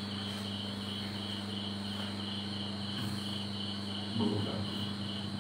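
An insect chirping steadily, short high chirps at about three a second, over a low steady electrical hum. A brief faint voice is heard about four seconds in.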